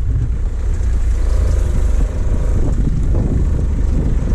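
Pickup truck driving on a bumpy dirt track: engine and tyre noise under a heavy, steady low rumble.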